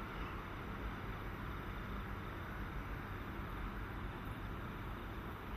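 Steady, even rumble and hiss of distant jet aircraft engines, with no single event standing out.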